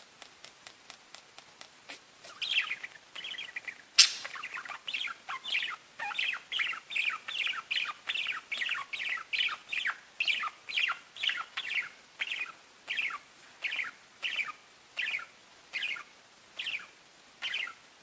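Pet budgerigars chirping: a run of short, falling chirps, about two a second, after a couple of seconds of faint quick ticking. A single sharp click comes about four seconds in.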